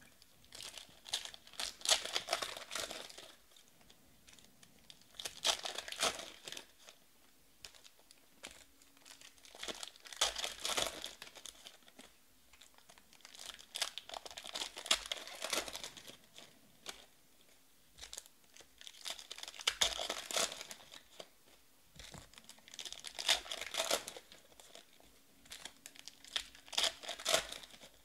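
Foil wrappers of Panini Prizm trading-card packs being torn open and crinkled by hand, in bursts every four seconds or so as one pack after another is opened.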